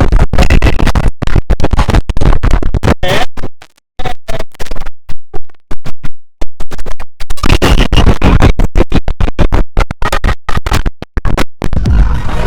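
IBM OS/2 Warp 3 shutdown sound, heavily processed with stacked effects and chopped into rapid stuttering fragments that sound like record scratching, loud throughout. It drops out briefly about four seconds in.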